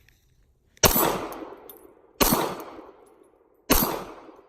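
Three 9mm pistol shots from a Glock 19, about a second and a half apart, each trailing off in a long echo.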